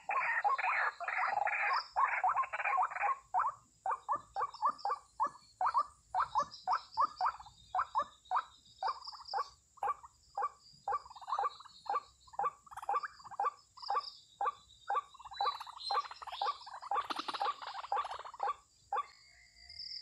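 White-breasted waterhen (ruak-ruak) calling: a long series of short repeated calls, tightly packed for the first few seconds, then spaced at about two or three a second, stopping about a second before the end.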